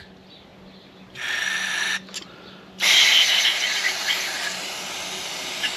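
Aerosol carburetor cleaner spraying into the jets and passages of a small-engine carburetor to flush out gum: a short burst of about a second, then a longer spray of about three and a half seconds.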